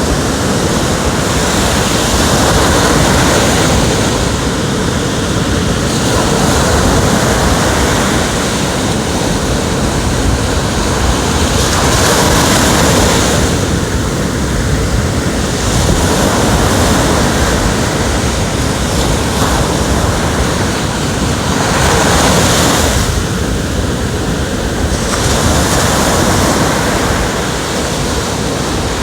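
Ocean waves breaking and washing on the shore, the surf swelling and ebbing every few seconds.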